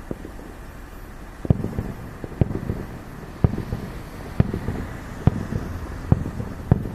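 Aerial fireworks bursting in a steady series, seven sharp bangs about a second apart starting about a second and a half in, each followed by a short rumbling echo.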